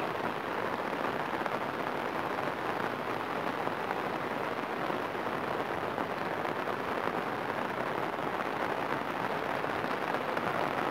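Steady rain falling on open floodwater.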